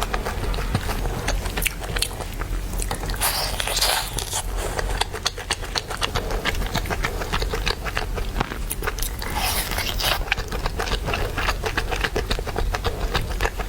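Close-miked chewing and biting of chicken: many small wet clicks throughout, with two longer noisy sounds of about a second each, around three and nine seconds in.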